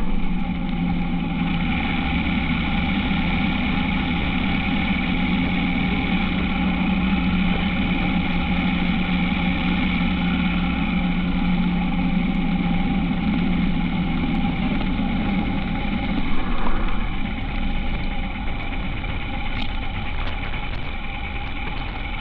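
Honda H'ness CB350's single-cylinder engine running steadily, its low note weakening about halfway through.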